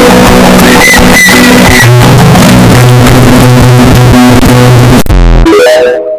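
Very loud synthesizer music with steady bass notes. About five seconds in it cuts to a short, deep boom, followed by a brief ringing tone that fades out.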